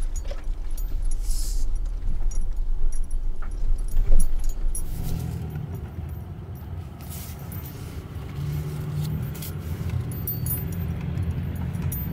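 VW Caddy camper van driving slowly over bumpy ground, its engine running at low revs under a steady low rumble. The loose kit inside rattles and jangles as the van jolts, with one louder knock about four seconds in.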